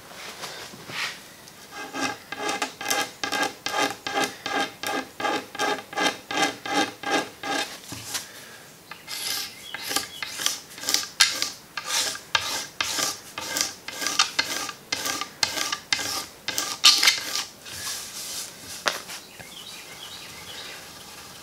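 Steel wool wetted with naphtha scrubbed back and forth over the finished oak surface of a table leaf, about two strokes a second, scouring at an old deposit lodged in the finish. The first several strokes have a squeaky ring; the later ones are scratchier.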